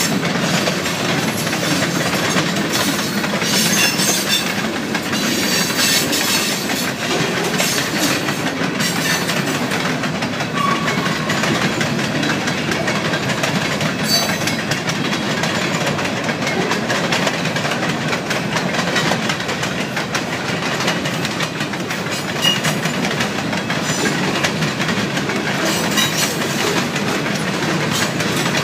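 Freight train cars rolling past at close range: a steady rumble with the clickety-clack of steel wheels over the rail joints, which comes thicker a few seconds in and again near the end.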